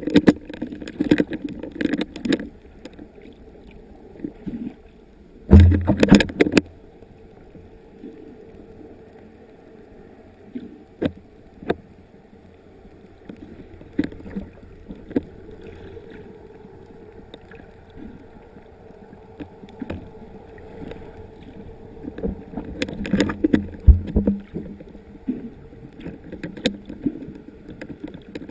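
Sea water sloshing and gurgling around a camera in the water, with irregular bursts of noise, scattered clicks and a heavy thump about six seconds in.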